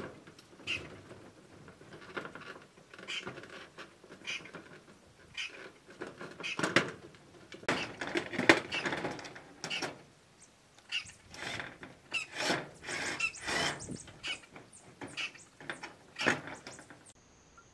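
Irregular knocks, taps and short scrapes from hand work with building materials. Near the end they cut off, leaving a faint steady insect buzz.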